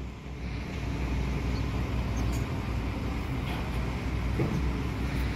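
Steady low rumble of vehicles running, with no single event standing out.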